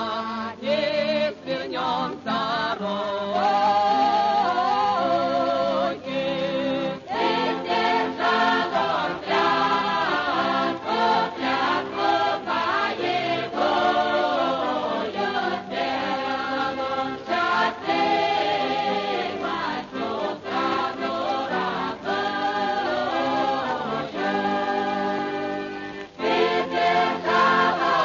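A choir singing a Soviet patriotic song in Russian, in long phrases with wide vibrato and short breaks between lines.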